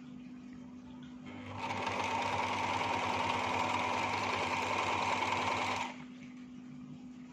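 Janome electric sewing machine running and stitching for about four seconds, building up speed, then stopping abruptly.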